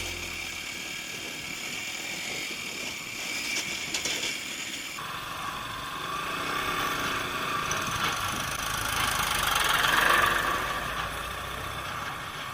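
A motor vehicle engine running, swelling in loudness to a peak about ten seconds in, then easing off.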